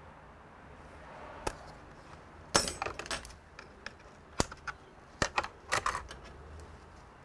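Small hard parts being handled and set down, giving a string of sharp clicks with a short clatter about two and a half seconds in and another near the end.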